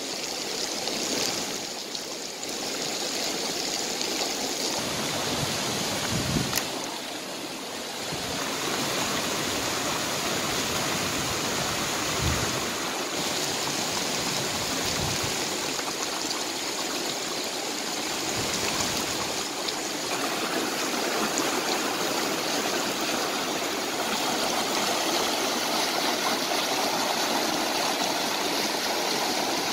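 Rocky mountain stream rushing and splashing over rocks in white-water rapids, a steady rush of water.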